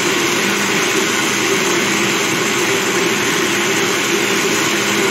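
Countertop blender running steadily at full speed, its motor whirring as it purées a full glass jar of tomato salsa.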